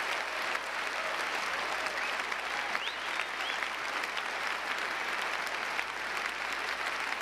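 Large theatre audience applauding steadily after a speech.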